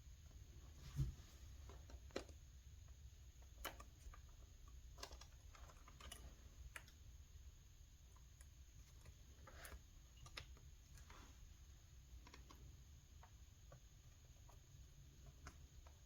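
Faint, scattered small clicks and taps of laptop parts being handled and fitted back into the chassis, over a low steady hum. The strongest click comes about a second in.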